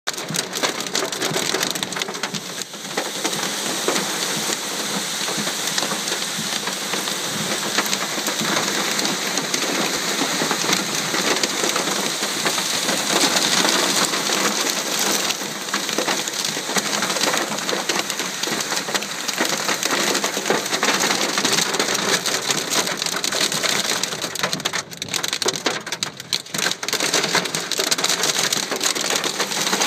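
Torrential rain and hail drumming on a car's roof and windshield, heard from inside the cabin as a dense, steady hiss packed with small impacts. It eases briefly about 25 seconds in, then comes back as hard.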